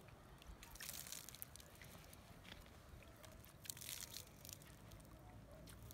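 Faint splashing and trickling of water poured from a small plastic watering can onto loose soil, with soft crackles that come and go, most noticeably about a second in and again near four seconds.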